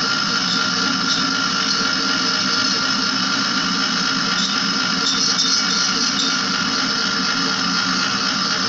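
Window-type air conditioner running with its cover off, compressor and fan motor together making a steady running noise with several constant tones.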